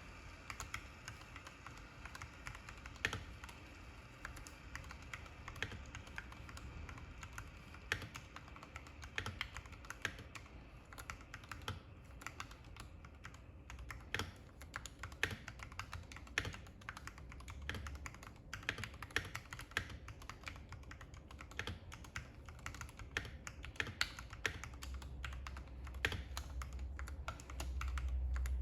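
Typing on a custom mechanical keyboard with lubed Gateron Ink Yellow linear switches in an aluminium-plate Tofu96 case, under MT3 keycaps: a run of irregular key clacks, a few louder strikes among them.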